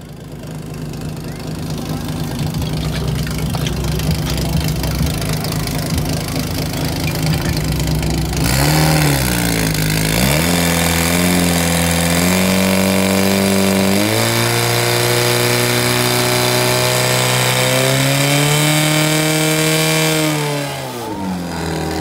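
Fire pump engine idling, then revved up about eight seconds in, climbing in steps to full speed and held there while it pumps water into the hoses, before dropping back near the end.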